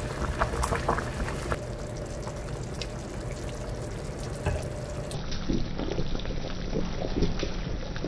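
A stainless steel pot of beef and seaweed soup (miyeokguk) at a rolling boil, bubbling steadily with many small pops.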